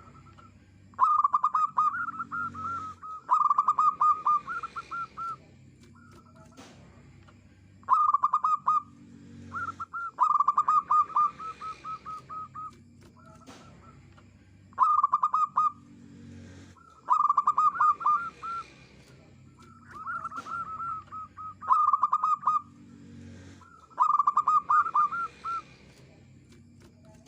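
Zebra dove singing: bouts of fast, staccato cooing notes repeated every few seconds, with short pauses between them.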